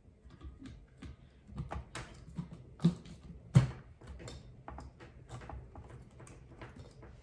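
Plastic lid being fitted and pressed down onto a blender jar: a run of light clicks and knocks, the two loudest close together about three seconds in.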